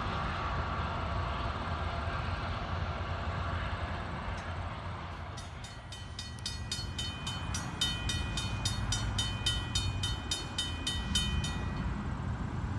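Railroad grade-crossing warning bell ringing in rapid, evenly spaced strikes from about five seconds in, stopping abruptly shortly before the end. A low rumble of a train runs underneath.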